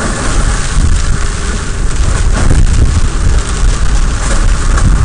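Steady road and wind noise from a vehicle driving on a dirt road: a heavy low rumble with wind buffeting the microphone.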